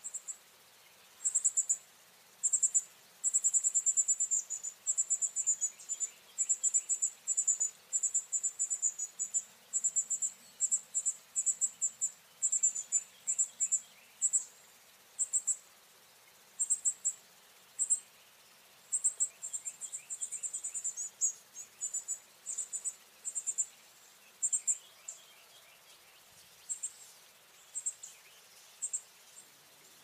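An insect calling in short, high-pitched, buzzing trills, repeated irregularly, some in quick runs and some a second or two apart.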